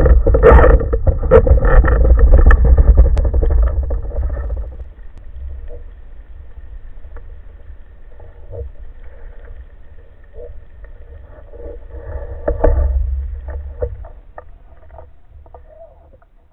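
Underwater rumble and sloshing of water moving around a camera housing on a speargun, loud at first and dying down about four seconds in, then faint with scattered sharp knocks and clicks and one brief louder swell near the end.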